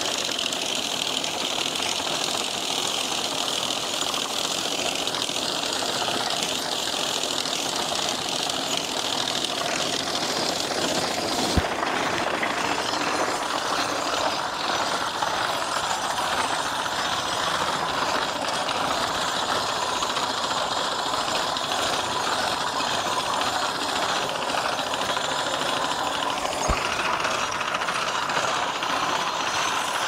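Horse-drawn sickle-bar mower running through thick hay: a steady mechanical clatter of the reciprocating knife in its six-foot cutter bar and the wheel-driven gearing. Two sharp knocks stand out, one about twelve seconds in and one near the end.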